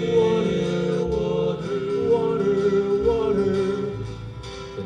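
Live western music: male voices singing held notes in harmony over guitar accompaniment.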